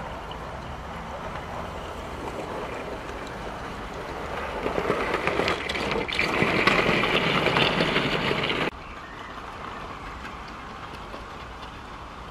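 OO gauge model freight train running past close by on garden railway track, its wheels clicking rapidly over the rails. The sound builds up over a couple of seconds as the wagons approach. It cuts off abruptly about two thirds of the way through.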